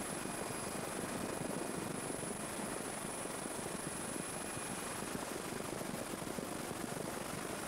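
Steady, unbroken drone of a helicopter's rotor and engines, heard from on board the aircraft.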